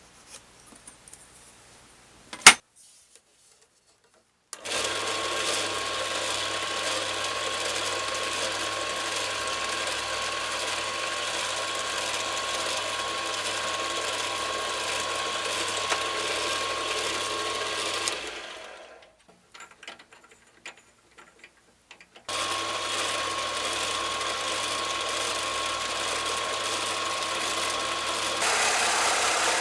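Small electric power tool motor running steadily with a constant whine, winding down and stopping about two-thirds of the way through, then starting up again. Near the end a louder, rougher noise joins it.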